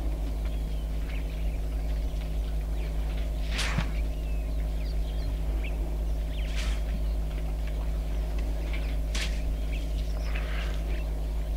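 Steady low drone of an idling vehicle engine, with faint bird chirps over it and three short hissing bursts spread through.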